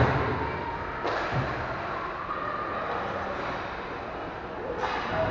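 Echoing knocks of ice hockey play: a sharp knock with a low thud at the start, another about a second in, and another near the end, over the steady hum of the rink.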